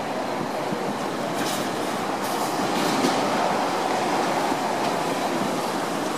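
Semi trucks with trailers rolling past: a steady rumble of diesel engines, tyres and rattling trailers, with a few faint short hisses in the first half.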